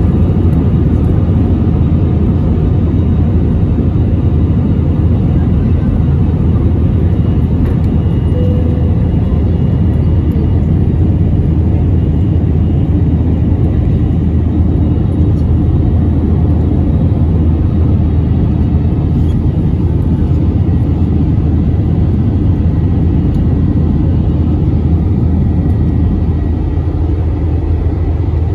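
Jet engines of an Airbus A320-family airliner at takeoff thrust, a loud, steady rumble heard from inside the cabin through the takeoff roll and initial climb.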